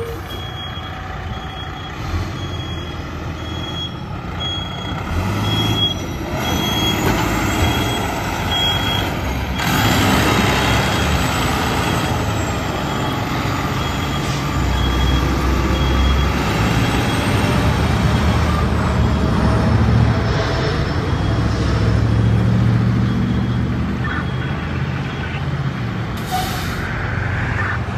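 Diesel fire engines running and pulling away, a steady low rumble that grows louder partway through. A backup alarm beeps repeatedly during the first several seconds, and an air brake hisses.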